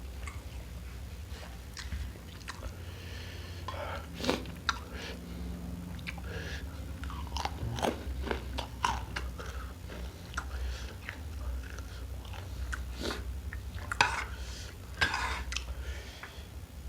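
Close-miked eating: chewing and biting, with irregular crunches and clicks, over a low steady hum.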